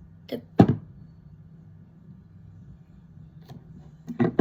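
Two brief thunks about half a second in, the second louder, as skincare bottles are picked up and handled, over a faint steady low hum.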